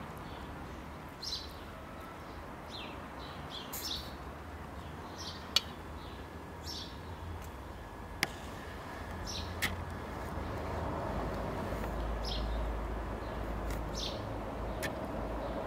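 Small birds chirping: short, falling high notes repeated about once a second. Three sharp clicks stand out in the middle, and a low rumble comes up after about ten seconds.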